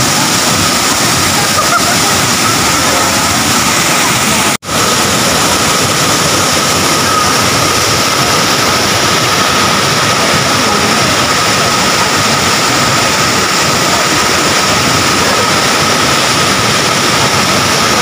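Loud, steady rush of a tall waterfall pouring onto rocks, cut off for an instant about four and a half seconds in.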